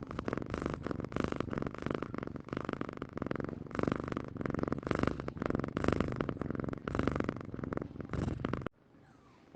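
Domestic cat purring close up, a fast rattling pulse that swells and fades about once a second. It stops abruptly near the end.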